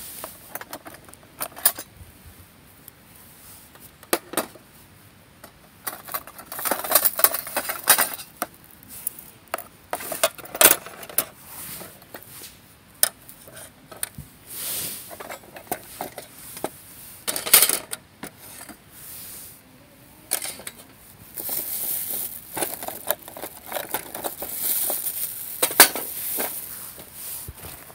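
Metal camp gear and cookware being handled: repeated clinks and clatters of metal parts knocking together, with rustling between them.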